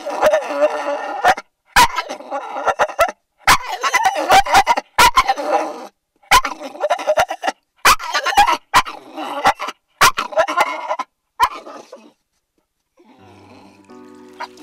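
A dog vocalising in a string of drawn-out whines and grumbles, each about a second long with short pauses and sharp clicks between them, as if talking. Near the end the voice stops and quiet music begins.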